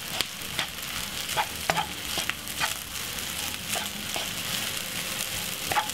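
Cooked rice frying and sizzling in a non-stick frying pan while a wooden spatula stirs it. The spatula scrapes and taps against the pan in irregular clicks over a steady sizzling hiss.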